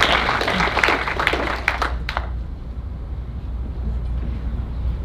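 Audience applause dying away about two seconds in, leaving only a steady low hum in the room.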